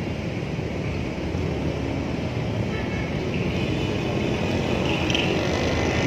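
Steady road-traffic noise: a low, even rumble of vehicle engines with no distinct events.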